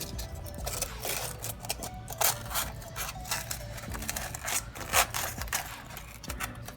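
Styrofoam insulation panel being handled and pressed back into a vending machine door: irregular scrapes, rubs and light knocks, the louder ones about two and five seconds in.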